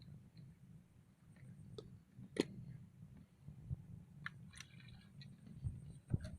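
A few scattered light clicks and taps over a faint low rumble, the sharpest click about two and a half seconds in and a small cluster of clicks near four and a half seconds.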